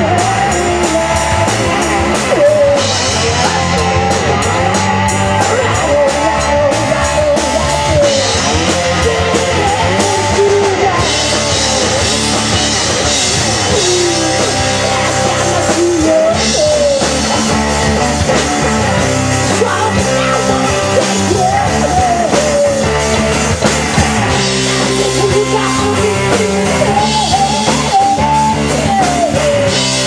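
Live rock band playing: a woman singing lead over electric guitar and a drum kit, loud and continuous.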